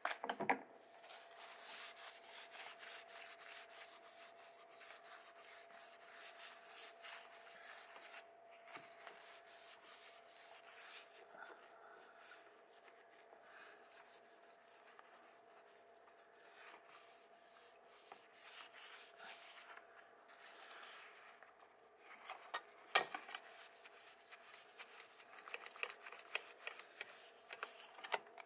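A paper tissue rubbed back and forth over the metal back of an iPhone in quick, rhythmic scrubbing strokes. The strokes grow quieter for a while in the middle, and there is one sharp knock about 23 seconds in, after which the scrubbing picks up again.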